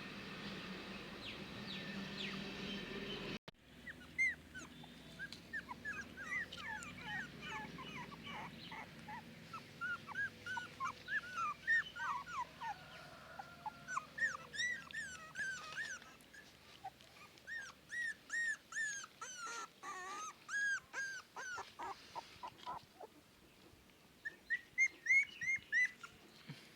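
Newborn puppies whimpering in many short, high cries that each rise and fall, coming in quick runs, starting about four seconds in after a steady hiss cuts off.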